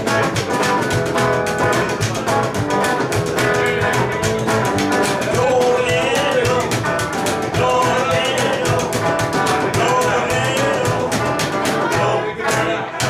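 Rockabilly band playing live: a hollow-body electric guitar and an upright double bass keep up a fast, even beat of sharp plucked strokes. Near the end the beat breaks into a few separate hits.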